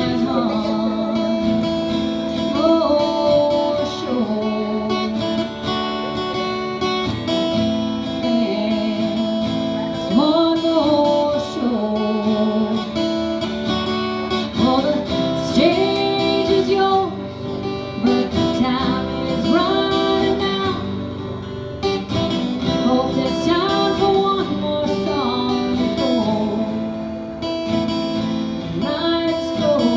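A woman singing and accompanying herself on a strummed acoustic guitar.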